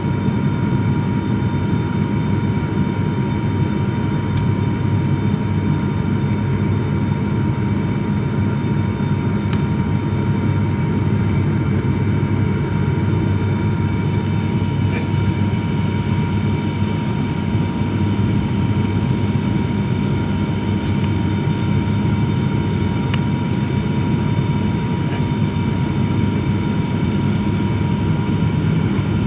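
Airliner cabin noise: the steady drone of the engines and rushing air heard from inside the passenger cabin, with a constant high whine running through it.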